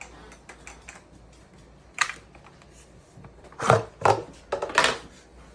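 Knocks, clicks and rattles from handling a new chainsaw and its packaging, with one sharp knock about two seconds in and a cluster of louder knocks between three and a half and five seconds in.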